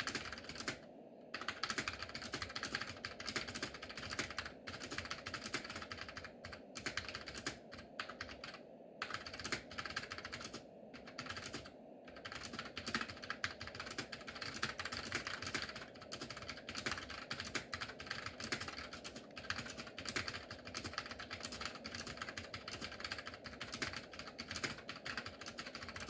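Typing on a Chicony 5191 keyboard with Mitsumi miniature mechanical tactile switches: a fast, continuous run of key clicks, broken by a few short pauses.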